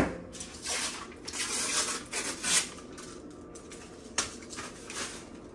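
Scattered clatter and scraping of kitchen dishes and utensils, in several short stretches with a pause in the middle.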